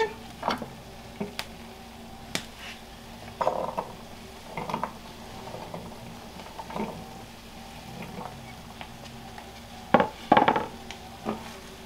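A wooden spoon knocking and scraping in a cazuela of cooking ground beef, and diced raw potatoes being slid off a wooden cutting board into the pot. Scattered knocks, with a louder cluster near the end.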